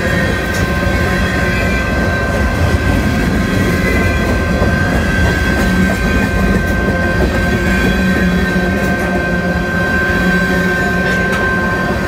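Freight train cars (tank cars and covered hoppers) rolling past close by: a steady rumble and clatter of steel wheels on the rails, with a steady high-pitched whine over it and a few sharp clacks.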